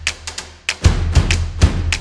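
Background music with a drum beat over a deep bass, sharp percussive hits recurring several times a second.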